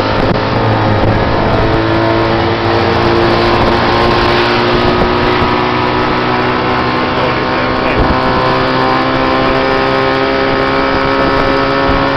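Tuk tuk's small engine running loud beneath the rider, its note climbing slowly as it picks up speed along the road.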